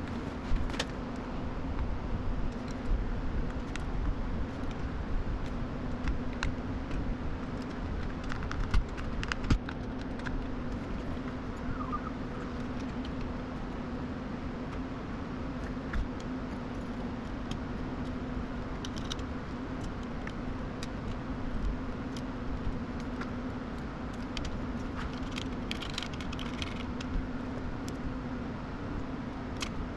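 Scattered small clicks and light rattles of hardware being handled, over a steady low hum. The clicks come most often in the first ten seconds and again in short clusters later on.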